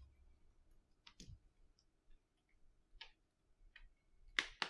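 Faint, sparse clicks and taps of small metal tools and iPhone parts being handled, with a louder cluster of clicks near the end.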